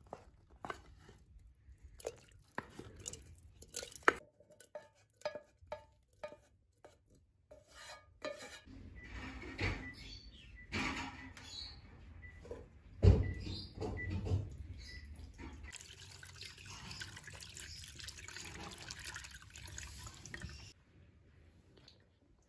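Scattered light clicks and knocks, then water poured from a clay jug into a ceramic bowl, splashing as plums are washed by hand in it, with a dull thump about halfway through.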